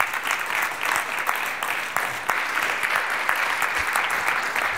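Audience applause: many hands clapping at once in a dense, even patter.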